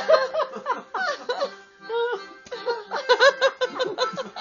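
Audience laughing, several people at once, over background music.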